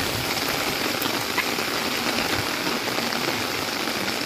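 Heavy downpour: rain falling steadily on a wet street, a constant even hiss.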